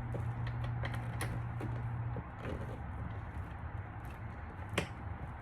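Small plastic trim clips and door-panel parts being handled and fitted: scattered light clicks and taps, with one sharper click near the end. A steady low hum stops about two seconds in.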